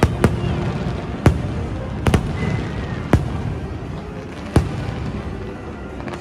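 Aerial fireworks bursting overhead: a run of sharp bangs at irregular intervals, about one a second, one of them a quick double, with the last about four and a half seconds in, over a steady background rumble.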